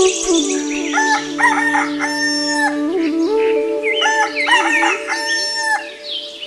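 A rooster crowing twice, each crow about two seconds long, one starting about a second in and the other about four seconds in, over a steady hum.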